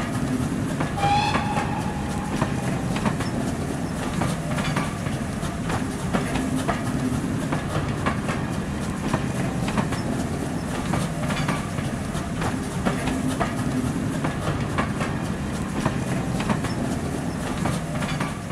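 Train coaches passing close by, their wheels running with a steady rumble and a clickety-clack over the rail joints. A short whistle sounds about a second in.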